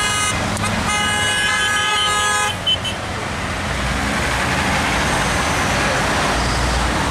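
A passing vehicle's horn honks, a short toot and then a longer blast lasting about a second and a half, in support of the roadside protest. Steady traffic noise from passing vehicles continues after the horn stops, with a deeper rumble near the end.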